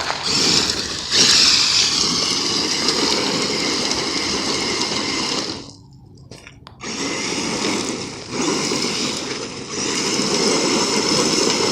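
Kyosho Mad Crusher VE RC monster truck's brushless electric motor and geared drivetrain whining under throttle, its diffs locked front and rear. The whine cuts out for about a second just before the middle, then comes back on.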